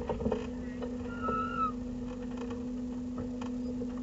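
Steady drone inside a race car's cabin as it creeps along at walking pace and slows, with a few clicks near the start and a short high squeal about a second in.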